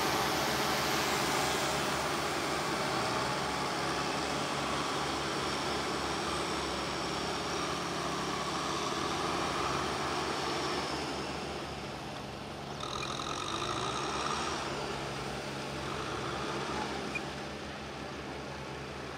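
Kubota tractor's diesel engine running steadily as it works a flooded rice paddy. A higher-pitched whine joins briefly about two-thirds of the way through.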